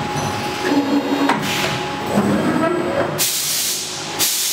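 HMT 3.0ECNC-MS all-electric CNC tube bender running a bend cycle on a metal tube. Its motors whine in short tones that shift in pitch, and there are bursts of hissing, the loudest lasting about a second near the end.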